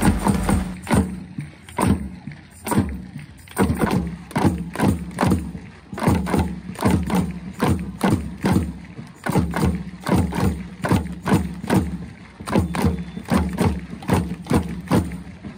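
Stadium crowd keeping up a steady beat of drum hits and hand claps, about two to three beats a second, to urge the home side on at a corner kick.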